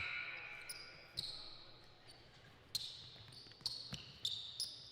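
A basketball being dribbled on a hard court: several separate bounces at an uneven rhythm.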